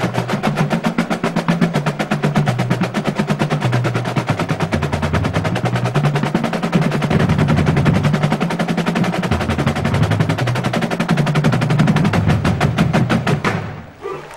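A drum corps playing Basel side drums in very fast unison strokes and rolls, with a lower shifting drum pattern underneath. The drumming stops abruptly near the end.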